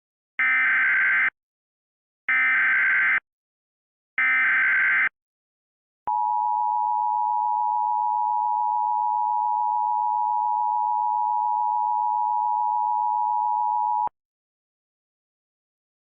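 Emergency Alert System SAME header for a Civil Emergency Message: three short bursts of warbling data tones, each just under a second, then a steady EAS attention tone held about eight seconds that cuts off sharply.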